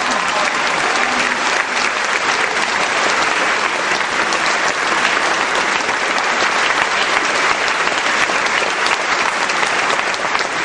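Theatre audience applauding steadily, a dense, even mass of clapping that follows the end of the orchestra's music.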